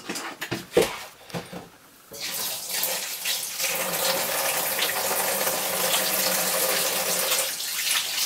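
Kitchen tap turned on about two seconds in and running steadily into the sink while hands are washed under it. A few knocks and clatters come just before the water starts.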